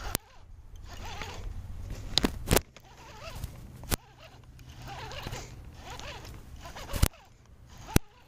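Fishing reel being cranked in stretches of steady rasping, broken by several sharp clicks.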